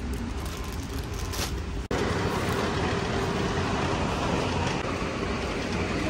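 Shopping cart wheels rolling over a smooth concrete store floor, a steady rumble. It breaks off abruptly about two seconds in and resumes slightly louder.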